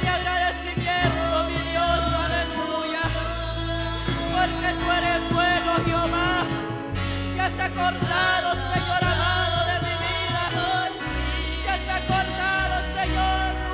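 Gospel worship music: singing voices over a band, with sustained bass notes that change every few seconds.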